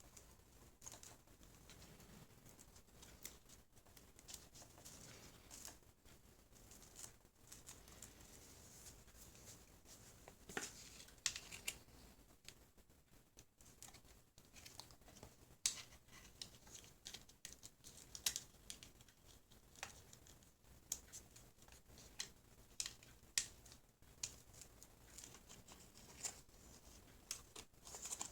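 Scattered small clicks, taps and light crinkling rustles of hands handling small parts and tools, irregular and quiet, with sharper clicks coming more often in the second half.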